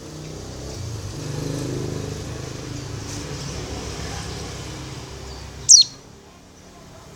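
A white-eye (pleci), given as a female calling to a male, utters one loud, sharp call about five and a half seconds in that falls steeply in pitch, with faint high chirps elsewhere. Beneath it runs a steady low rumble that stops just as the call sounds.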